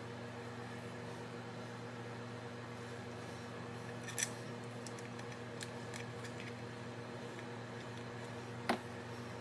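Light clicks and taps from hands handling metal pump and gearbox parts: three sharp ones about four, five and a half and nearly nine seconds in, the last the loudest, over a steady low hum.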